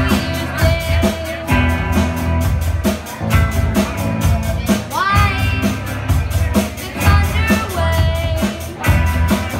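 Live rock band playing: a drum kit keeping a steady beat under electric bass and guitars, with some sung notes over the top.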